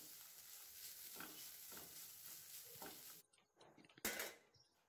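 Wooden spatula stirring grated carrot stuffing in a nonstick frying pan: a few faint scraping strokes over a light sizzle. After it stops, a short knock about four seconds in.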